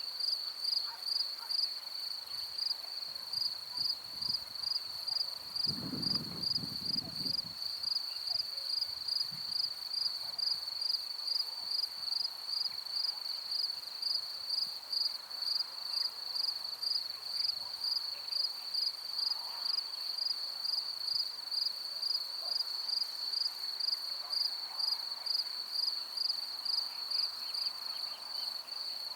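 A cricket chirping in a steady, even pulsing rhythm on one high pitch, with a brief low rumble about six seconds in.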